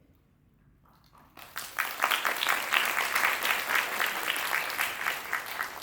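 Audience applauding: many hands clapping that break out about a second and a half in, hold steady, and begin to die away near the end.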